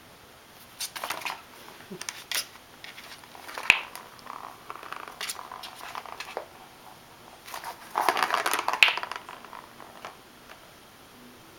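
Plastic balls rolling and clattering in a plastic ball-track cat toy as a kitten bats at them. The sound comes in scattered rattles, with a sharp knock about four seconds in and a longer, busier rattle around eight to nine seconds.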